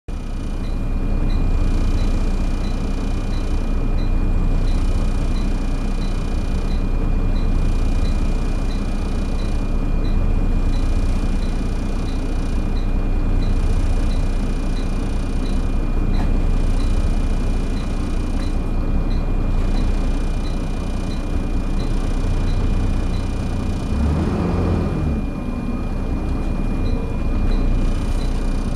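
Volvo B7TL double-decker bus running hard under acceleration, its engine noise swelling and easing every few seconds. A steady high whine (the 'hoover' sound) runs over it, with a light regular ticking about twice a second. A brief louder rumble comes near the end.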